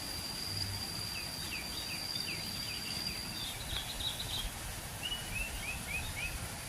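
Forest birds calling over steady low background noise: a thin, high whistle held for several seconds, overlapping quick chirping notes, then a run of five short falling notes near the end.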